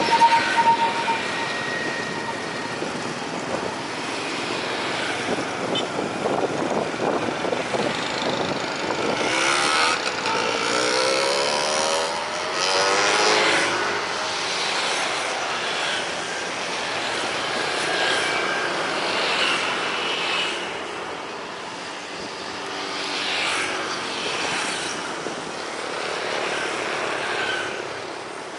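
Road traffic passing close by: cars and motorbikes going past one after another, the noise swelling and fading with each pass.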